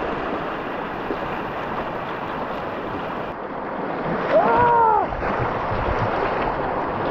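Rushing, splashing river water in whitewater rapids, with wind buffeting the microphone. A person's short exclamation rises and falls about four seconds in.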